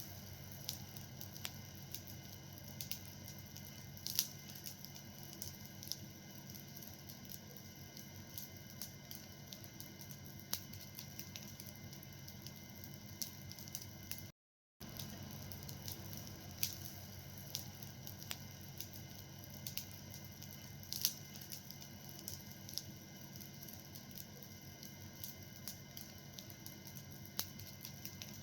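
Fire burning with a steady soft hiss and scattered crackles and pops, a few of them sharper snaps. The sound cuts out completely for a moment about halfway through.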